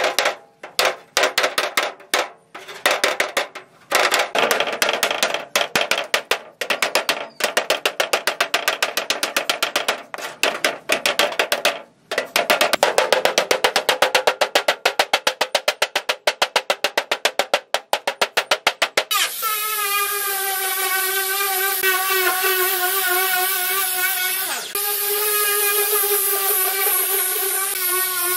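Hammer blows on the steel of a fire-damaged, rusted car hood, metal on metal: irregular strikes at first, then a fast, even run of about five strikes a second. About nineteen seconds in, an electric angle grinder starts up and runs with a steady, slightly wavering whine as it grinds rust off the panel.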